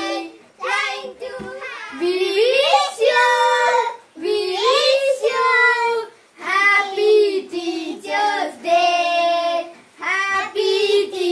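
Children singing a song together in phrases of a second or two, with short breaks between them.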